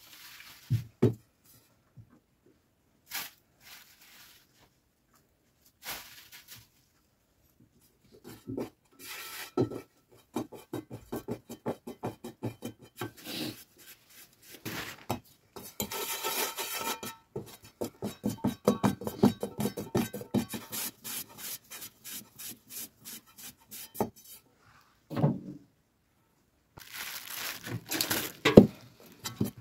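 Hands kneading and squeezing soft dough in a metal bowl: quick squishing, rubbing strokes in long bursts with pauses between, and a plastic bag rustling against the bowl.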